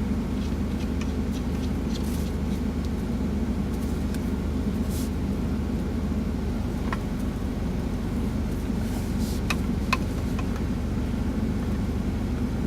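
Semi truck's diesel engine idling steadily, a low even rumble, with a few light clicks of small parts being handled as a phone-gimbal bracket is screwed on.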